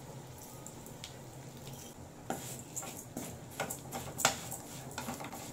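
A metal spoon stirring flattened rice (aval) as it roasts in ghee in a metal kadai: irregular scrapes and clinks against the pan, starting about two seconds in.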